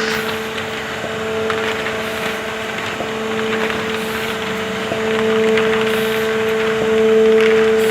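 Modified ZF 391 envelope-making machine running steadily: a constant motor hum with a dense patter of light mechanical clicks, swelling slightly louder near the end.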